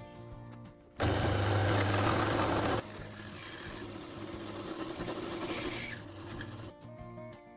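A power tool working metal. It starts loud about a second in and runs for nearly two seconds, then carries on more quietly with a high squeal for about three seconds before stopping.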